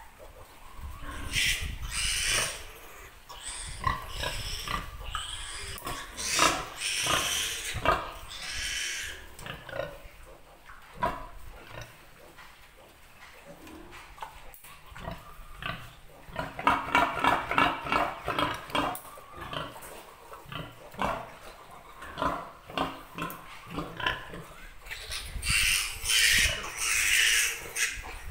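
A piglet squealing in several loud, high bursts, with a quick run of grunts in the middle, as it is held and its teeth are clipped.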